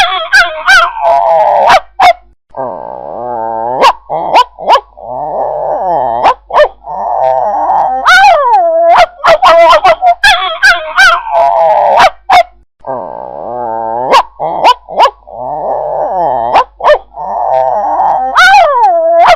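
Angry dog barking and growling: bursts of sharp, loud barks alternate with snarling growls of about two seconds each. The same sequence comes round again about ten seconds later.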